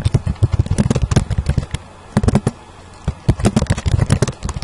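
Computer keyboard typing: quick, irregular runs of key clicks, with a short lull about halfway.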